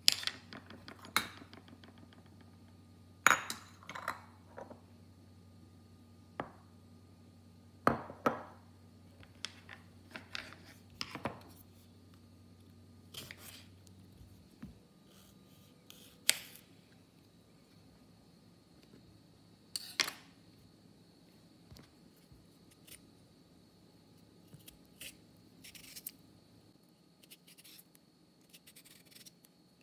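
Kitchen knife knocking on a cutting board and slicing through cucumber, in irregular sharp knocks. Near the end come softer scraping strokes as a peeler is drawn along the cucumber.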